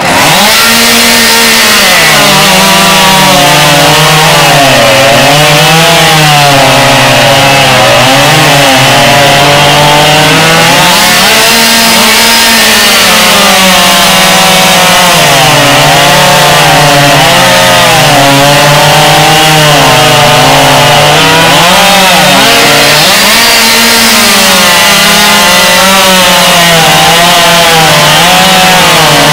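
Chainsaw running flat out and cutting through a log, its engine pitch repeatedly dipping as the chain bites under load and recovering. Very loud and continuous.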